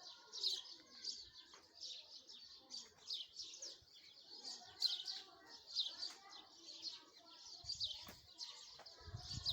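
Small birds chirping: many short, high chirps, several a second, overlapping with fainter lower warbling calls. A brief low rumble comes near the end.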